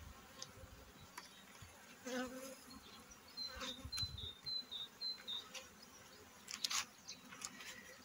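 Honeybees buzzing faintly around an open hive, with a few light clicks and knocks from the hive frames and hive tool being handled. A short run of high chirps sounds near the middle.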